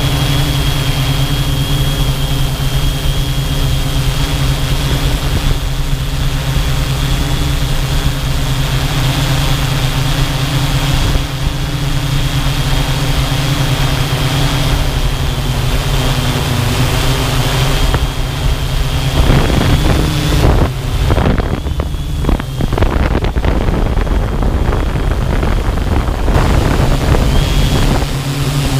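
Engine and propeller of a small camera-carrying aircraft running at a steady speed, a strong low hum with a thin high whine above it. From about 19 s to 26 s the steady hum breaks up into uneven, gusty wind rush on the microphone, then the steady note comes back.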